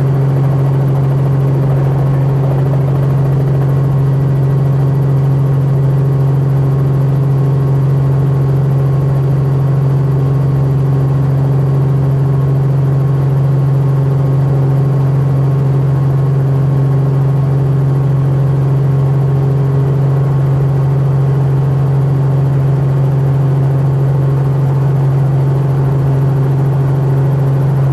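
Helicopter's engine and rotors running at a steady pitch during a landing approach, a constant low hum with no change in speed.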